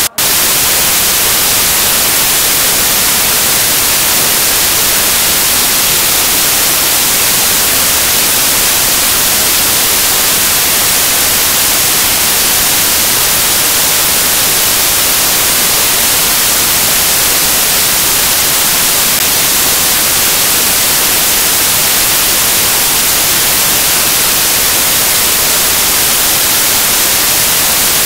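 Loud, steady static hiss, brightest in the high end, filling the sound track in place of the recording's sound: a fault in the recording, with a brief cut-out right at the start.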